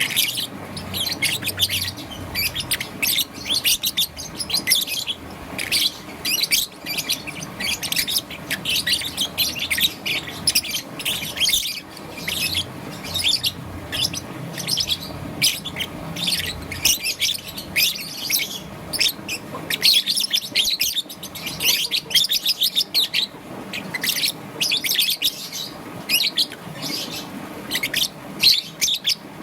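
Young peach-faced lovebird chirping in rapid high-pitched chirps, one after another with hardly a pause.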